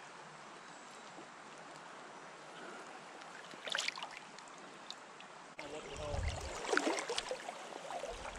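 Stream water running, a steady rush with one brief splash-like burst near the middle. About two-thirds of the way through, the sound suddenly gets louder and busier, with low rumbling bumps under the water noise.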